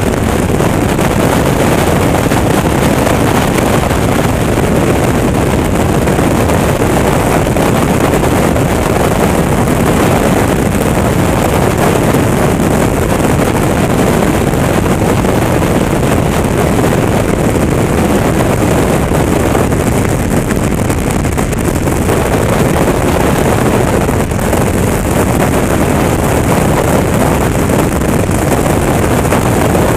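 Steady wind rush over the camera microphone on a Honda CTX1300 motorcycle cruising at road speed, with the bike's running and road noise beneath it.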